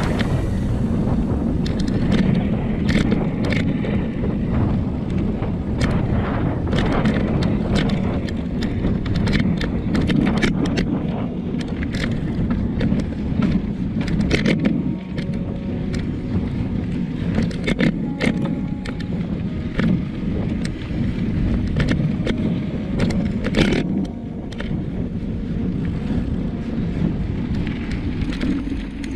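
Mountain bike rolling along a dirt road: a steady rumble from the knobby tyres on the packed dirt and gravel, with frequent sharp clicks and rattles as the bike jolts over bumps.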